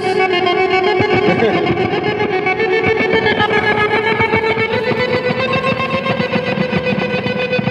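Electric guitar played through an effects unit: a held, processed note over fast repeated picking, stepping up in pitch about five seconds in.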